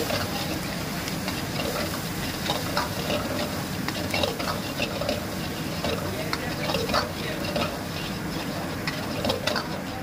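A metal ladle scraping and clinking irregularly against a wok during stir-frying, over the steady rush of a gas wok burner and a light sizzle.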